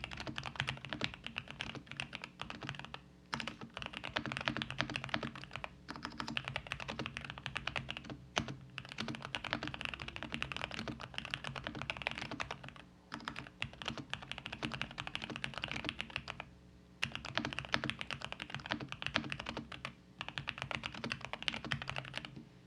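Fast, continuous typing on a GMK67 mechanical keyboard with JWICK Black V2 linear switches, a dense run of keystroke clacks broken by a few short pauses. The typing stops right at the end.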